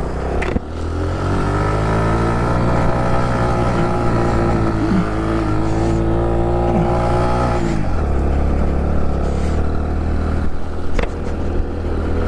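Honda Pop 110i's small single-cylinder four-stroke engine pulling away under throttle and holding a steady pitch for several seconds. About eight seconds in its pitch drops abruptly and it runs on at a lower note.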